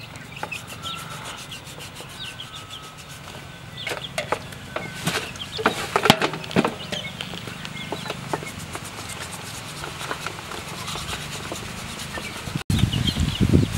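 Small knife slicing and scraping the hide off a cow's head, a run of short sharp scrapes and knocks that are loudest a few seconds in. Chickens cluck in the background, and a louder handling noise follows a cut near the end.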